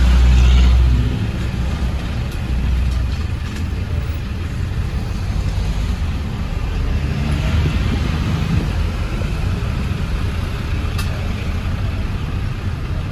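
Street traffic: vans driving slowly past at close range, a steady engine and tyre rumble that is loudest in the first second.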